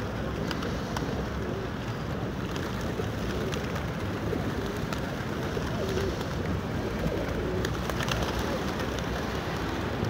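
A large flock of feral pigeons (rock doves) cooing, with scattered wing flaps as birds take off and land. Steady background noise runs underneath.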